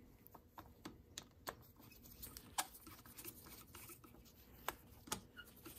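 Faint, irregular small clicks and light scraping as a screwdriver turns the main jet down into an Argo 8x8 carburetor.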